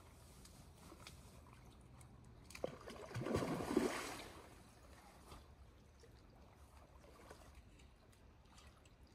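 Faint trickling of river current, with a short burst of splashing and sloshing water close to the microphone about three seconds in that lasts just over a second.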